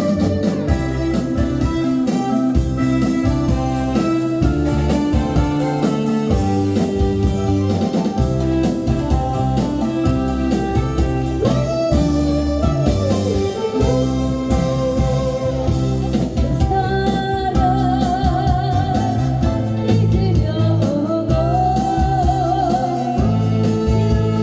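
Korean trot song on a backing track with electric guitar, keyboard and a steady beat, with a singer's voice over it.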